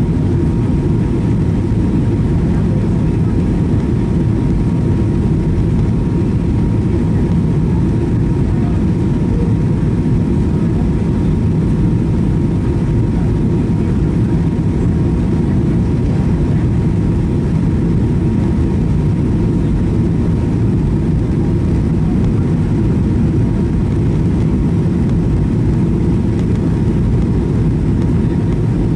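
Steady cabin noise inside a Boeing 737-800 descending on approach: a deep, even rumble of engine and airflow noise, with a thin steady whine above it.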